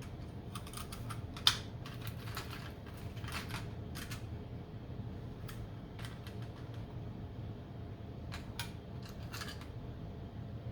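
Scattered light clicks and taps of small electronic parts being handled on a workbench, with one sharper click about one and a half seconds in.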